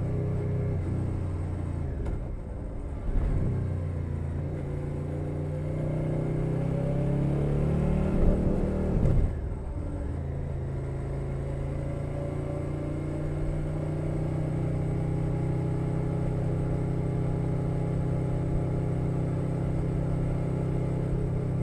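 2021 Suzuki SV650 V-twin engine through a Leo Vince Nero exhaust, heard from under the seat while riding. It eases off about two seconds in and picks up again a second later. The revs then climb for several seconds to a loud peak, drop sharply, and settle into a steady cruise.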